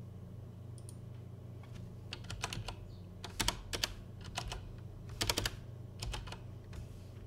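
Typing on a computer keyboard: irregular runs of keystrokes with short pauses between them, over a low steady hum.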